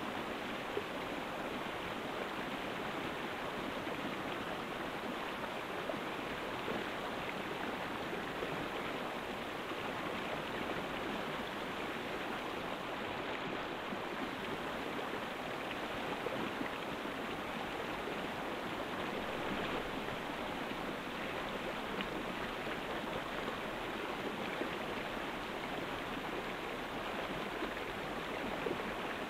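Steady, even rushing hiss that does not change, with no distinct clicks, calls or other events standing out.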